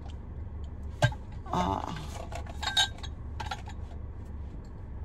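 Empty glass candle jars clinking and knocking as they are handled, with one sharp knock about a second in and a few lighter clinks after, over a low steady hum.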